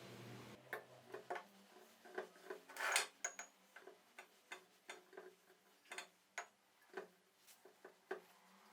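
Faint, irregular light taps and clicks, one to three a second, with one louder, longer scrape or knock about three seconds in.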